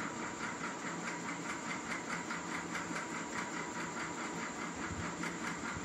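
Steady background hiss with a faint low hum and an even, rapid flutter of about six pulses a second.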